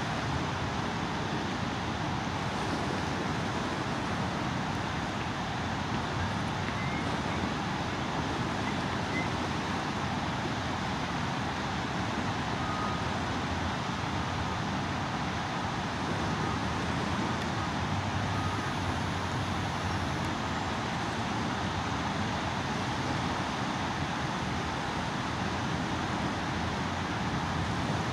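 Steady outdoor background noise, an even low rumble and hiss with no distinct events.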